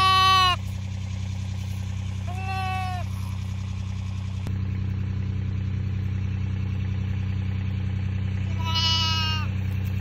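Newborn lambs bleating: three short, high bleats, one at the start, one about two and a half seconds in and one near the end, over a steady low hum.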